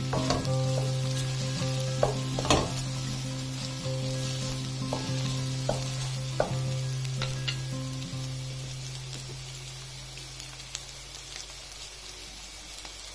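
Cabbage, shrimp and chili stir-frying in a hot oiled pan: a steady sizzle, with a wooden spatula scraping and tapping against the pan as the vegetables are turned. The stirring strokes come often in the first half and more sparsely later, and the sizzle slowly dies down.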